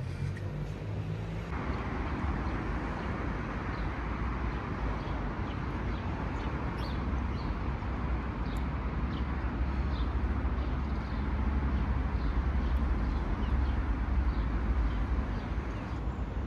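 Steady street traffic noise, with a small bird chirping repeatedly through the middle.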